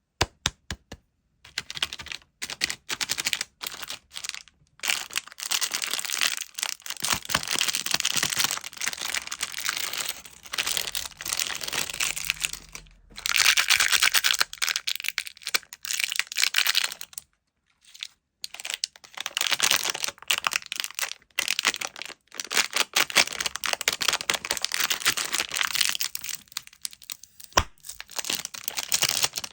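Plastic candy wrappers and packaging crinkling, crackling and tearing as sweets are unwrapped. The sound comes in dense runs of crackles with short pauses between them.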